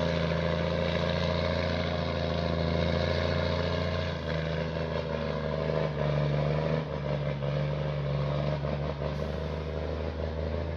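A large engine running steadily, its pitch shifting about four seconds in and again near seven seconds, with a few faint knocks in the second half.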